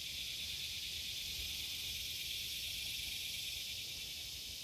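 Steady, high-pitched chorus of insects, an unbroken hiss, with a faint low rumble underneath.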